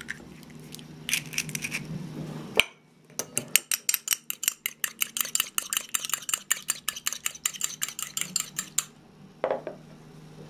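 A fork beating a raw egg in a porcelain cup. After a few light clicks, the tines clink rapidly and evenly against the cup, about seven times a second, for around five and a half seconds, then stop.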